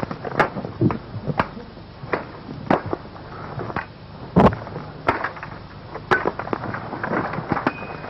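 Branches and brush cracking and snapping in irregular sharp cracks, about one or two a second, the loudest about four and a half seconds in.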